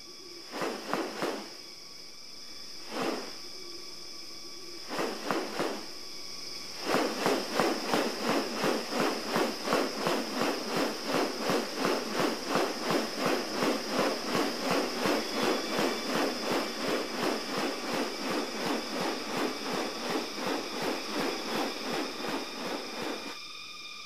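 Displaying male riflebird's wings swishing: a few single swishes, then from about seven seconds in a regular rustle of about three swishes a second that stops shortly before the end. Rainforest insects hold steady high buzzing tones throughout.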